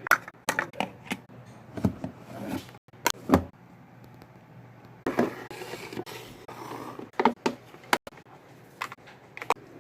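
Small plastic toy pieces and a toy refrigerator's parts clicking and knocking irregularly as they are handled and put in place, with a stretch of rustling about halfway through.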